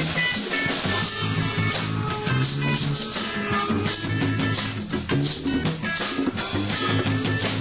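Band music with bass, guitar and a shaker or rattle keeping a steady rhythm.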